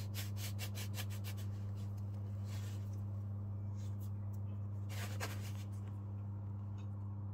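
A plastic scone cutter pressed and twisted through soft dough against a wooden board gives short scraping rubs: a quick run of them at the start, then single scrapes about two and a half and five seconds in. A steady low hum runs underneath.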